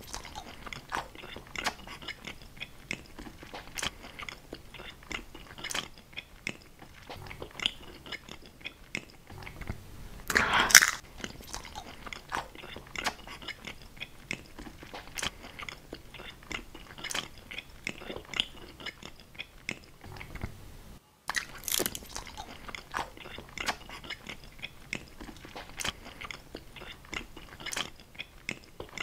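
Close-miked biting and chewing of a prop chicken leg shaped from edible 'clay', with a steady run of small wet mouth clicks. There is one louder crunching bite about ten seconds in.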